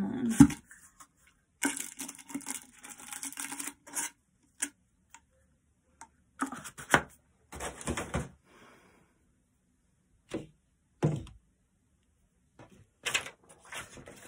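Objects being handled out of view: a stretch of rustling and scraping, then scattered sharp knocks and clicks.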